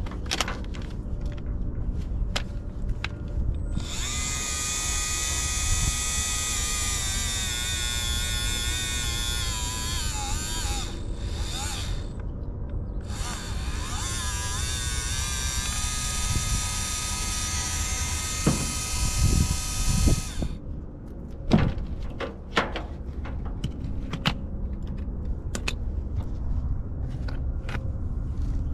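Navac cordless power flaring tool's motor whining as it spins a fresh flare onto the end of the copper refrigerant line. It runs in two long stretches with a short blip between, and its pitch sags near the end of the first run. A few knocks follow as it stops.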